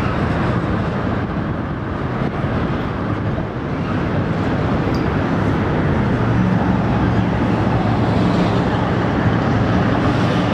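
Long container freight train rolling across a steel truss railway bridge, a steady rumble of wheels on rails. A low steady hum comes in about halfway through.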